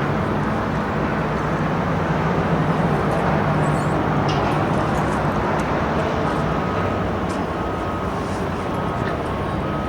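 Construction-site machinery running with a steady low hum. From about six seconds in, a vehicle's backup alarm beeps at a regular pace.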